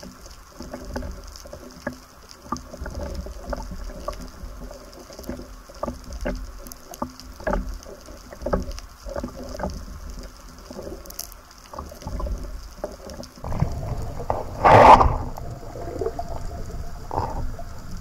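Water sloshing around an underwater camera at the sea surface, with many irregular small clicks and knocks from the spearfishing gear. About fifteen seconds in comes one loud, short rush of water.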